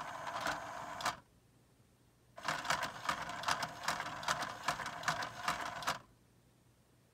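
Pounce cat toy's small motor and plastic gear drive whirring in spurts as it swings its wand between the domes. A run of about a second, a pause of over a second, then a longer run of about three and a half seconds with rapid clicking.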